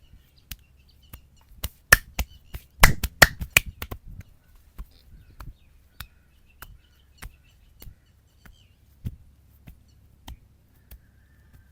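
Hand massage of the head: a quick flurry of sharp slaps and snaps about two to four seconds in, then lighter single clicks about every half second.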